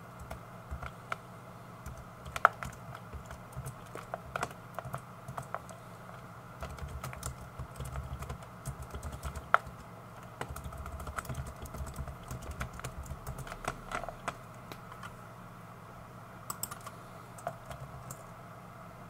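Typing on a computer keyboard: irregular key clicks in quick runs broken by short pauses, over a faint steady hum.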